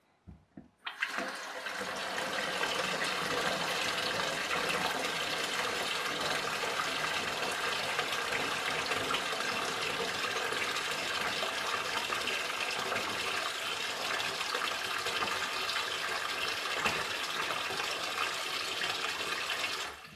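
Kitchen mixer tap running hard into a stainless steel sink, filling it. The water starts about a second in and is shut off near the end.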